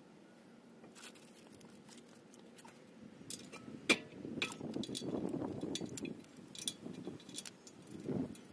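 Light metallic clinks and small rattles of hand tools and metal parts being handled, with one sharper click about four seconds in.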